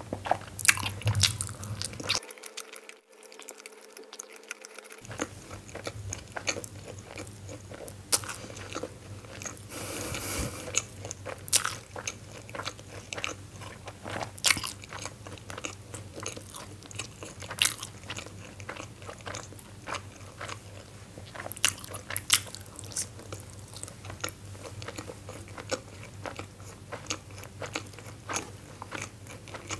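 Close-miked chewing and mouth sounds of a person eating steamed momo dumplings with chutney: many short, irregular wet clicks and smacks of biting and chewing.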